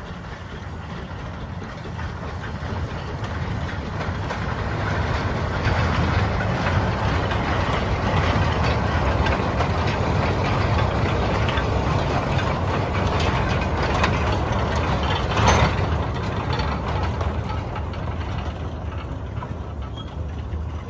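Narrow-gauge Bagnall 0-4-0 saddle-tank steam locomotive passing with a train of tipper wagons, the wagons rattling and clicking over the rails. It grows louder as the train nears, is loudest mid-way with one sharp clank, then fades as the train draws away.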